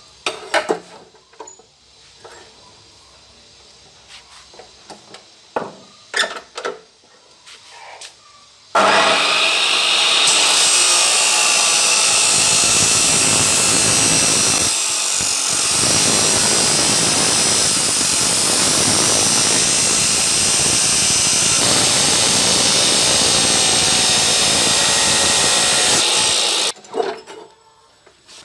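A metal tube is knocked and clicked into place in the vise of a Maktec abrasive cut-off saw; then, about nine seconds in, the saw runs loudly and steadily as its abrasive wheel grinds through the tube, stopping abruptly near the end.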